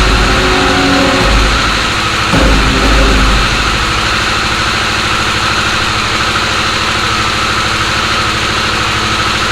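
Harley-Davidson Sportster S's liquid-cooled Revolution Max 1250T V-twin running, uneven and louder at first with a sharp click about two and a half seconds in, then settling into a steady idle from about three and a half seconds on. It idles with the battery charging and no fault code showing.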